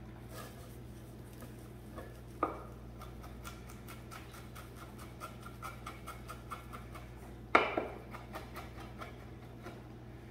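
Kitchen knife finely chopping shiso (oba) leaves on a wooden cutting board: a run of quick, light taps of the blade on the board, with two louder knocks, the loudest about seven and a half seconds in.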